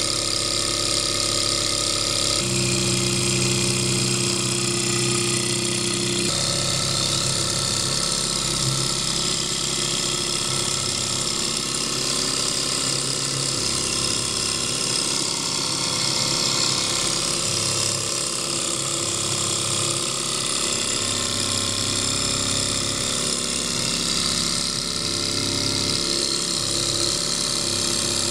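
Small alpha-type Stirling hot-air engine running steadily, the continuous mechanical sound of its pistons, cranks and flywheel turning at speed. Its tone shifts a couple of times in the first few seconds, then holds even.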